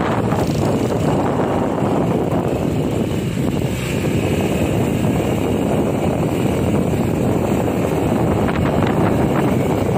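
Steady rush of wind buffeting the microphone while riding a motorbike, with the bike's running mixed into the noise.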